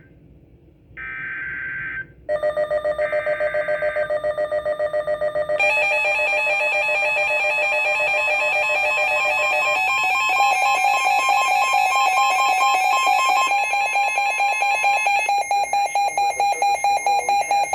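Weather radio receiving an Emergency Alert System severe thunderstorm warning. First come short, buzzy bursts of SAME digital header data, about a second each. Then, from about two seconds in, the alert tone sounds: a loud electronic alarm of several steady pitches, pulsing rapidly, growing fuller about five seconds in.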